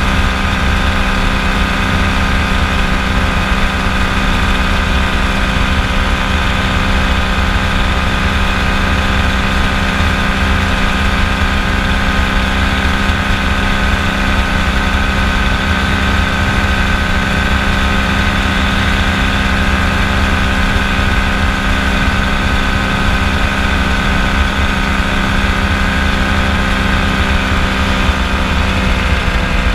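Kolb FireFly ultralight's engine and propeller running steadily in flight: a loud, even drone with a rough low rumble underneath, the pitch easing down slightly near the end.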